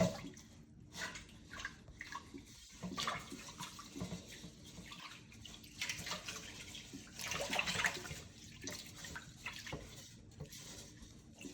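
Water running and sloshing in uneven spurts, with small clicks and knocks, as food is washed in a sink.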